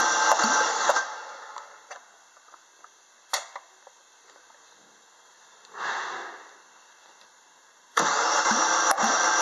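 Opel Z16XER 1.6-litre 16-valve four-cylinder engine cranking on its starter without firing during a compression test, with an even beat of compression strokes; the seller lists compression of about 10 in all four cylinders. The cranking stops about a second in, followed by a sharp click and a short hiss, and starts again near the end.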